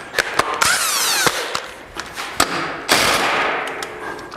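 Cordless impact wrench: a short spin-up and a few sharp clicks, then from about three seconds in it runs on the primary clutch bolt, fading off before a louder run starts at the very end, as it starts to break the 21 mm bolt loose.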